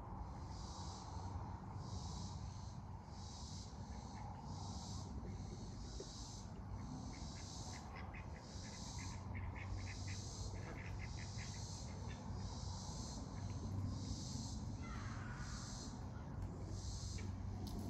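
Insects chirping: a high, pulsing chirp that repeats evenly a little more than once a second, over a steady low hum. About halfway through there is a short run of rapid ticks, and a brief falling call comes near the end.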